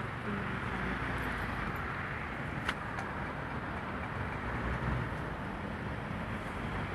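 Steady road traffic noise from the street, with one sharp click a little under three seconds in.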